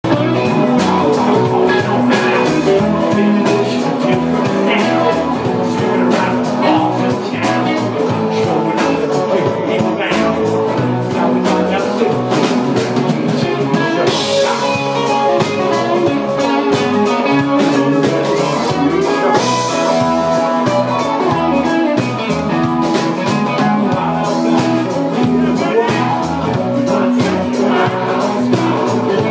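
Live band playing a song with a steady drum-kit beat, electric guitar and bass guitar, and a man singing lead into a microphone.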